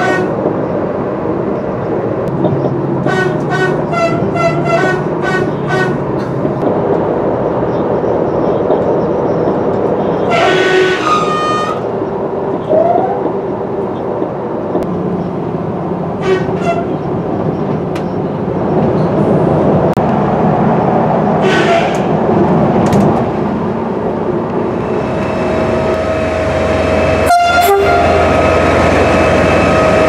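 Train running along the track, heard from aboard, with several short horn blasts; the longest comes about ten seconds in. Near the end the sound changes to a steady engine drone.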